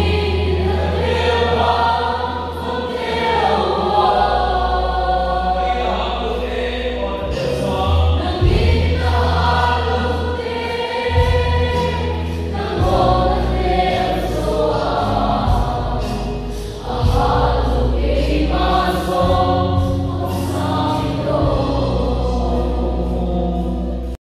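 A group of voices singing a worship song over music with deep bass notes that change every few seconds; it cuts off suddenly at the end.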